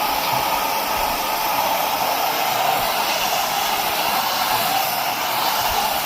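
Pressure washer running and spraying water in a steady rush, with a constant hum under it.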